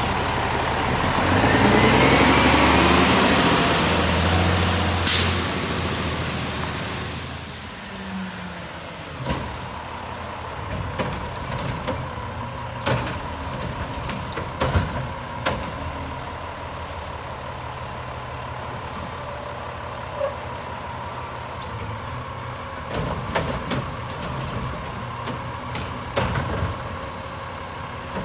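Garbage truck at work. For the first several seconds the engine and hydraulics run loud under a rising whine, with a sharp hiss-like crack about five seconds in. Then it settles to a lower steady drone with a steady high whine and scattered clanks and knocks.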